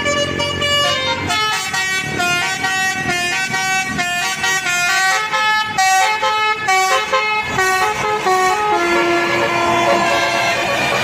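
Multi-tone telolet horn on a tour bus playing a tune, several notes sounding together and stepping up and down in quick succession. Near the end it holds one longer low note.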